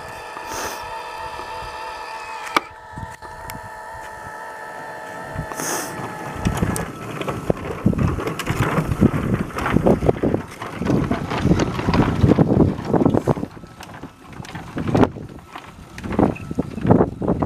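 Backyard ride-on miniature train, a Super Chief-style locomotive pulling its cars. A steady whine of several tones stops about six seconds in, then the steel wheels rumble and clatter over the track as the train rolls past.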